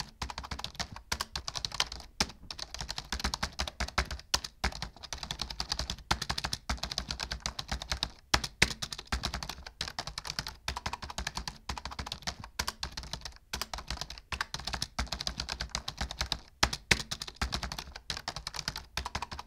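Fast typing on a computer keyboard: a quick, steady run of keystroke clicks with short pauses now and then.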